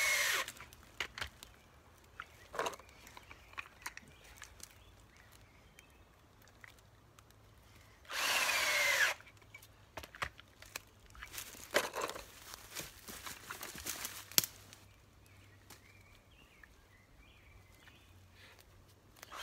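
Cordless drill driving screw-in electric-fence insulators into a tree trunk: the end of one run at the very start, then one run of about a second midway with its whine falling in pitch. Scattered clicks and knocks of handling follow, the sharpest near the three-quarter mark.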